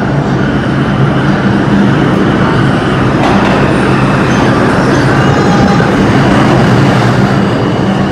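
New York City Subway IRT train entering an underground station and running in alongside the platform: a loud, steady rumble that grows fuller about three seconds in as the train reaches the platform, with faint high-pitched whining tones over it.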